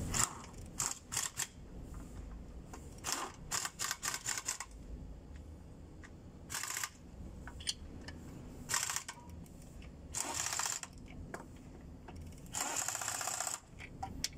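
Hand socket ratchets clicking in quick runs with short pauses as bolts are turned down by hand.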